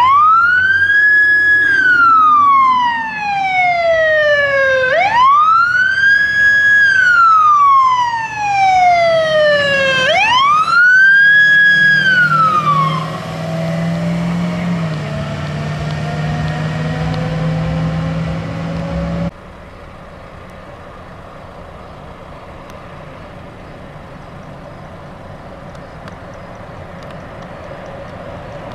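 Wildland grass fire truck's siren on wail: three long cycles, each rising quickly, holding high and then gliding down over about five seconds, fading away as the truck passes, with the truck's engine running under it. About nineteen seconds in it cuts suddenly to a quieter, steady road-noise rumble.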